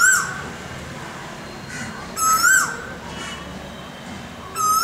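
Male Asian koel singing its loud, rising two-part 'ko-el' call, repeated three times about every two and a half seconds.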